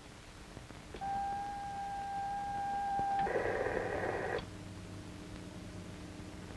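Vintage amateur radio receiver being tuned: a steady whistle of a carrier tone for about two seconds, then about a second of hiss and static that cuts off to a faint low hum.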